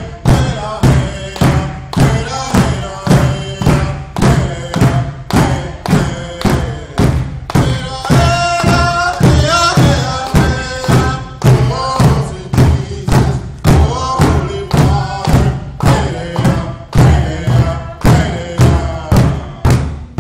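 Large powwow drum beaten in unison by several drummers in a steady beat of about two strokes a second, with voices singing over it, rising highest near the middle.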